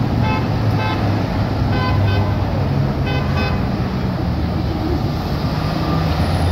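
City street traffic running steadily with a low engine drone, while a vehicle horn gives about six short toots in quick pairs over the first three and a half seconds.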